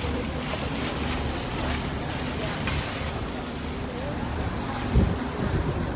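Sightseeing river boat under way: a steady low engine drone under the wash of water and wind noise on the microphone, with a low thump about five seconds in.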